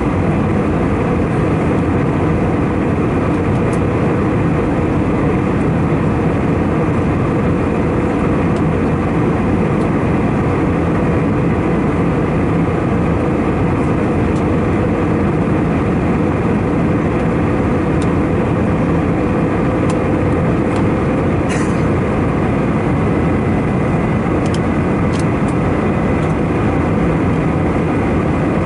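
Steady cabin noise inside an Airbus A319-111 airliner in cruise: its engines and the airflow over the fuselage, heard from a passenger seat. A few faint clicks come near the end.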